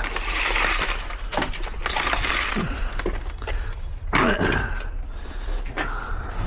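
Clattering, scraping and rattling of hard objects being handled, with scattered knocks; loudest in the first couple of seconds and again about four seconds in.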